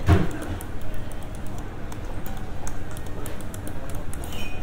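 Espresso machine work: a metal portafilter knocks once just after the start, followed by scattered small metallic clicks and clatter. Near the end comes a short hiss as water starts flushing out of the group head.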